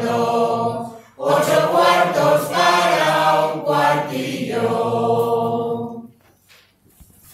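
Mixed choir of men's and women's voices singing a traditional Spanish Christmas aguinaldo song without instruments. A phrase ends about a second in, a new phrase follows, and the singing stops about six seconds in.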